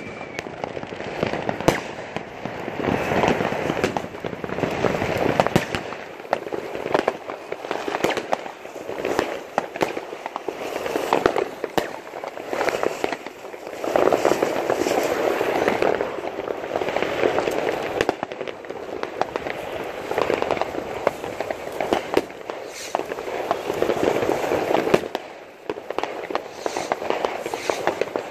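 New Year's fireworks: ground fountain fireworks spraying sparks with a continuous hiss and crackle, peppered with many sharp bangs and pops, swelling and easing in waves.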